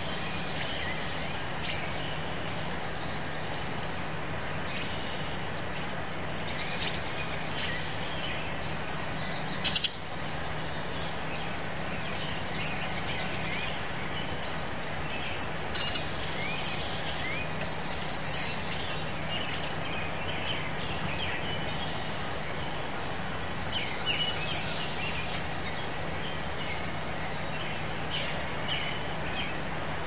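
Several wild songbirds chirping and singing at once, short calls and trills scattered over steady outdoor background noise with a low hum. A short sharp crack about ten seconds in.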